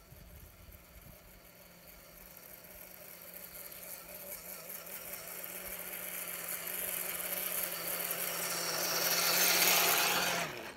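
RC4WD Trail Finder 2 scale RC truck's electric motor and gearbox whining as it drives over grass toward the microphone, growing steadily louder until it passes close by near the end, then cutting off suddenly.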